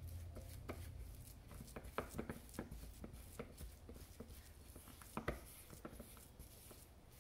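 A utensil clicking and scraping faintly against a small stainless steel bowl in short, irregular strokes while mashing and stirring cream cheese into shredded coconut.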